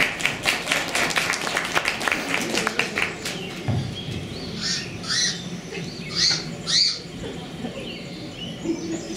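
Audience clapping for the first few seconds, then a child imitating a bird with short, high squawks: two pairs of calls.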